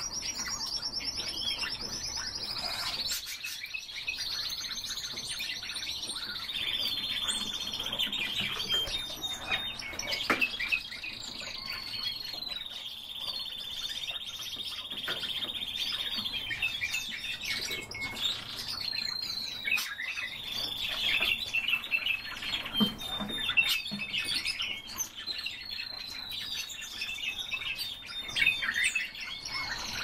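Pet cage birds chirping and singing without pause: long high trills and whistles that slide slowly in pitch, mixed with short clicks and chirps.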